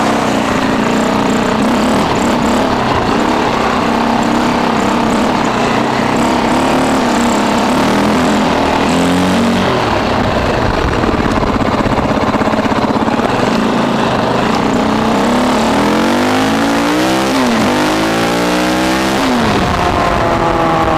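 KTM 450 EXC-R dirt bike's single-cylinder four-stroke engine running under way. In the last few seconds its pitch climbs and falls back several times in a row as the bike accelerates through the gears.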